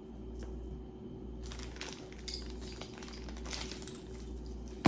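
Costume jewelry pieces clinking and rustling as they are handled and laid out, with a sharper click at the very end.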